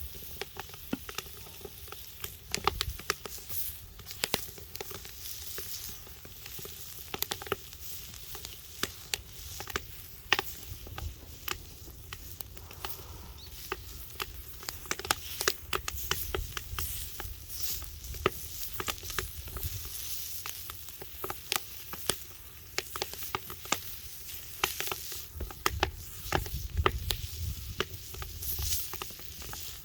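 Log wood fire crackling, with irregular sharp snaps and pops all through and a sizzling hiss.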